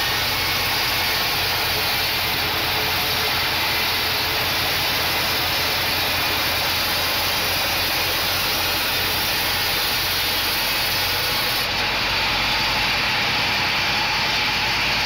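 Band sawmill running steadily as its band blade saws lengthwise through a teak log.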